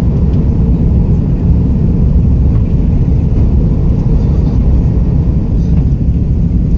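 Airbus A330-300 jet engines at takeoff thrust: a loud, steady, deep rumble.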